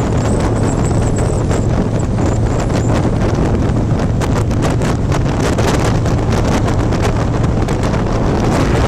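Wind buffeting the microphone on a moving motorcycle at road speed, over the steady low drone of the engine.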